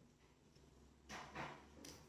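Near silence: room tone, with three faint short sounds in the second half.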